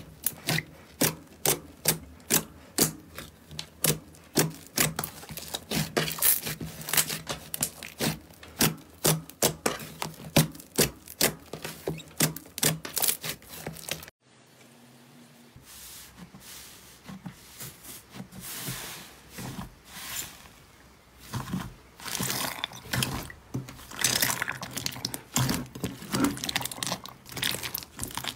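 Slime being squeezed and worked by hand, giving sharp, regular clicking pops about three times a second. After a sudden cut, it changes to softer, denser crackling and crinkling.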